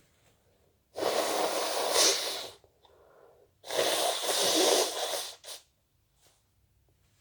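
A person with a sniffly nose sneezing twice, each sneeze a long, forceful blast of about a second and a half. A quieter breath comes between them and a brief sniff just after the second.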